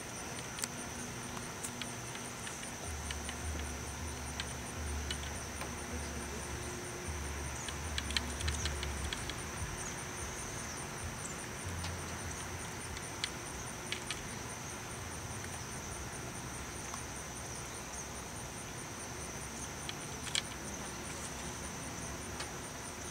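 Insect chorus calling steadily: a continuous high buzz with a rapid pulsing trill above it, with a few scattered sharp clicks.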